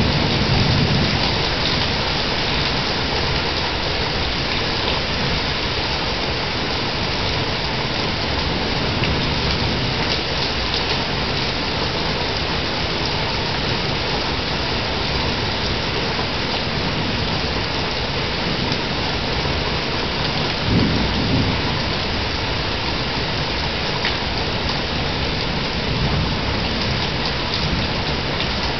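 Steady heavy rain heard through a porch security camera's microphone, with low rolls of thunder: one right at the start and a stronger one about two-thirds of the way through.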